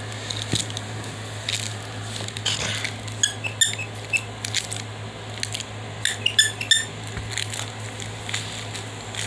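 Short high-pitched squeaks in two quick clusters, about three and six seconds in, as a puppy plays on a bed among plush toys. Under them are rustling of bedding and a steady low hum.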